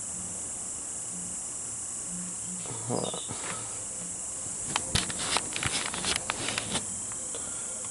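Steady high-pitched chirring of crickets. About three seconds in there is a short rustle, and from about five to seven seconds in there is a quick run of sharp clicks and rattles from something being handled.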